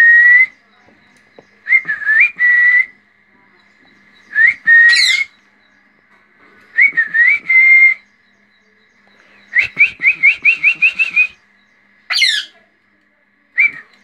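Short whistled phrases held at one pitch, each sliding up into its note, with a quick run of about ten chirpy whistles a little past the middle. Between them come a couple of shrill rose-ringed parakeet squawks that sweep steeply up and back down.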